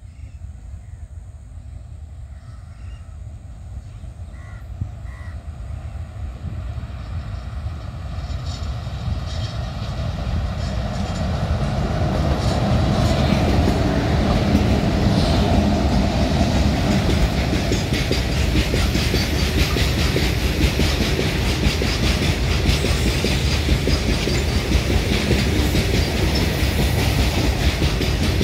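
Freight train hauled by two WAG-5 electric locomotives, approaching and growing steadily louder over about twelve seconds. It then passes close by with a continuous heavy rumble and a clickety-clack of wagon wheels over the rails.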